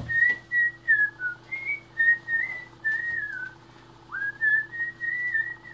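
A person whistling a tune in short held and sliding notes, with a steady low hum underneath.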